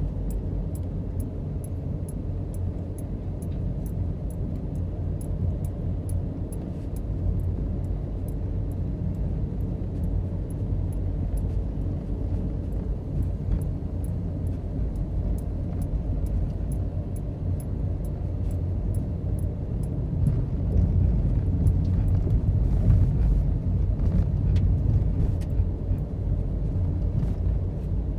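Steady low rumble of a car on the move, with faint, regular high ticking over it; it grows a little louder about two-thirds of the way through.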